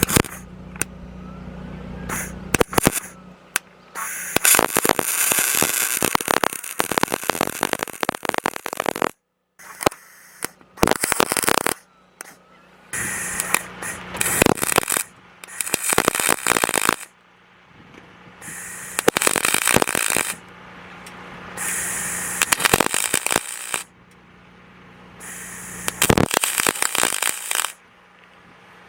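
Electric arc welding: the arc crackles and sizzles in about seven bursts of a few seconds each, with short pauses between them, as the welding rig is tested with tack welds.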